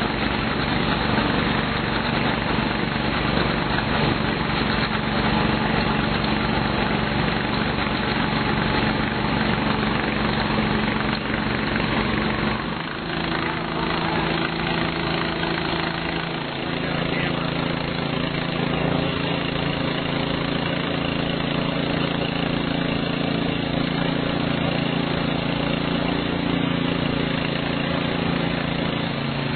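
Engine of an aquatic weed harvester running steadily. Its note shifts in pitch about thirteen seconds in and again around sixteen seconds.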